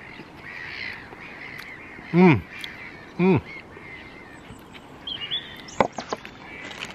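A man's two short, close hums of enjoyment with his mouth full, each sliding down in pitch, about a second apart. Faint birdsong runs behind them.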